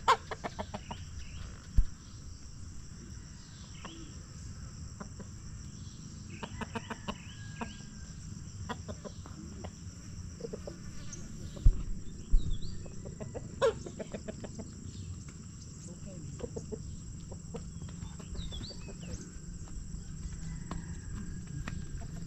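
Chickens clucking in short bursts, with a steady high drone of insects behind and a few dull thumps.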